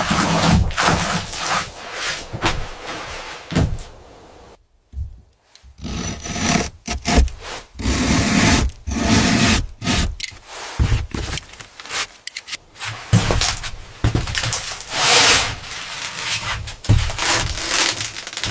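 Repeated rubbing and scraping strokes of work on wood, with a short break about five seconds in.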